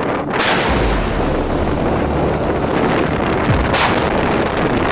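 Mk 45 5-inch/62-calibre naval deck gun firing twice, about three and a half seconds apart. Each shot is a sharp blast that fades out slowly over a low rumble.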